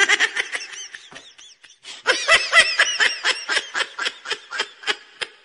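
High-pitched laughter, a rapid run of giggles: one short bout at the start, then a longer bout from about two seconds in.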